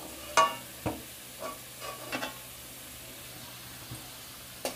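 Potato chunks sizzling in hot oil in a metal kadhai as a steel spatula scrapes the pan and lifts the fried pieces out. A few sharp metal clinks come from the spatula against the pan and plate, the first about half a second in with a short ring.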